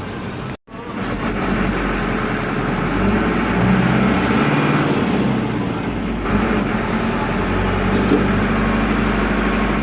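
Air-cooled Deutz F4L912 diesel of an Otokar M-2000 minibus running under way, heard from the driver's cab, its note rising and falling a few times. The sound cuts out completely for a moment about half a second in.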